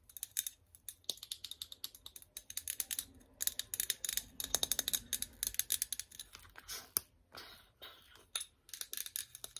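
Long fingernails tapping and scratching on a gold trigger-spray hairspray bottle, with clicks from its plastic trigger head: a quick, uneven run of sharp taps with a few short pauses.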